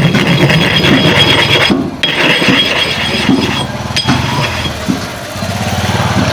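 A sharpening stone being scraped by hand to flatten its surface: rough rubbing strokes, with a short break about two seconds in, then easing off after about four seconds, over a steady engine hum.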